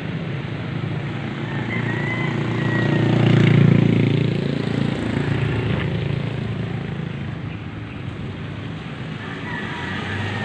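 A vehicle engine running with a steady low hum that swells to its loudest about three to four seconds in, then eases off.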